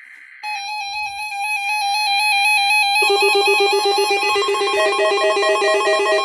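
Synthesized electronic tones in a rapid, trilling melody, with a louder low steady tone joining beneath it about three seconds in. It opens with a brief burst of data tones.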